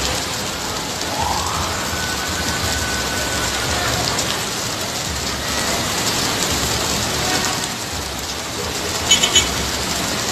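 Heavy rain falling steadily and splashing on surfaces. About nine seconds in there are three short, sharp clicks.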